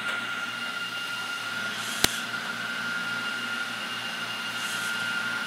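Battery-powered toy drill motor running continuously with a steady high whine, and a single sharp click about two seconds in.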